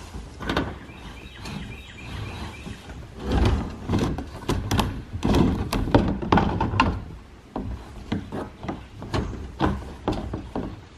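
Irregular knocks, thunks and scrapes of hard plastic being handled: the black screw cap of an IBC tote is twisted off and set down, and a garden hose is fed into the tote's opening, rubbing against the plastic tank and its steel cage.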